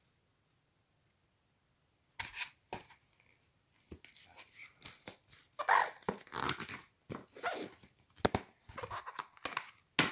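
Handling noise close to the microphone: irregular rustling and crinkling of the book's pages, starting about two seconds in after a silent gap and going on in uneven bursts.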